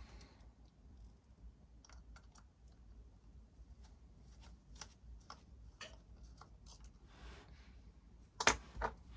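Light scattered clicks and taps of a plastic soap-dispenser pump housing and its circuit board being handled and turned over, with two louder knocks in quick succession near the end as the part is set against the bench.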